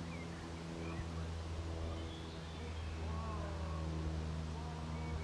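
A steady low mechanical hum, with a few faint, short bird chirps over it.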